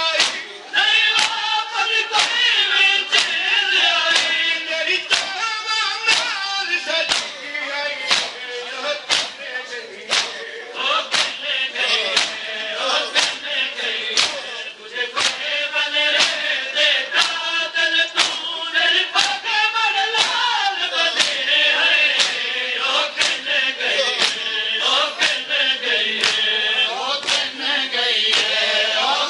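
Men chanting a noha together in a lamenting chorus, over a steady beat of sharp hand slaps from matam (rhythmic chest-beating).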